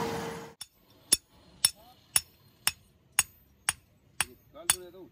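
Hand hammer striking an axe head forged from truck leaf-spring steel, held with tongs on a steel anvil block. Sharp, ringing metal-on-metal blows land at a steady pace of about two a second.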